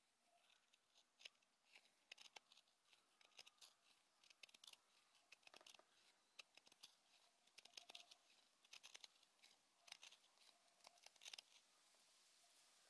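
Faint, irregular clicks and scratches, a few close together and then a pause, without a steady rhythm.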